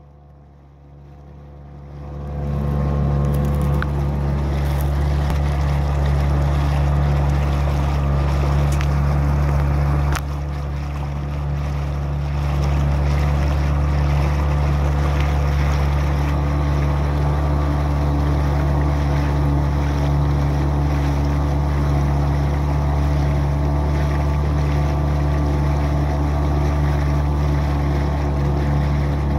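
Johnson outboard motor running under way, pushing a Zodiac inflatable, on a freshly cleaned carburetor. The sound builds over the first two seconds to a steady drone, drops briefly about ten seconds in and picks back up about two seconds later.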